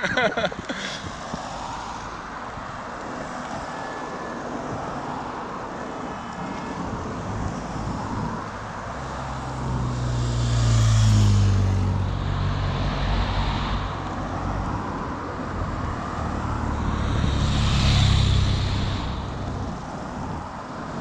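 Race convoy vehicles, team cars and a police motorcycle, driving past one after another over steady road and wind noise. Two louder passes swell and fade about ten and eighteen seconds in, the engine note of the first dropping in pitch as it goes by.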